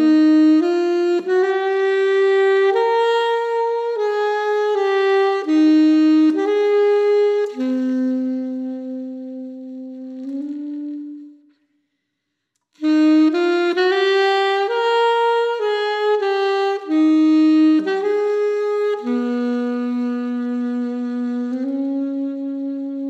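Solo saxophone playing a slow melody of held notes. The line stops for about a second around the middle, then starts a new phrase.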